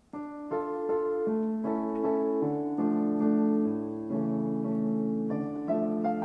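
Piano music: a slow melody over held chords, beginning a moment in after a brief gap.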